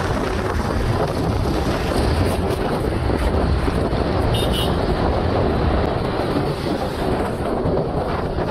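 Wind buffeting the microphone on a moving motorcycle, with engine and traffic noise underneath; steady throughout.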